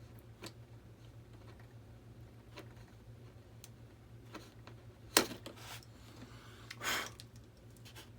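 Hobby knife cutting and shaving foam on a foam RC jet's exhaust nozzle: scattered light clicks, a sharp click about five seconds in, and a short scrape near seven seconds, over a low steady hum.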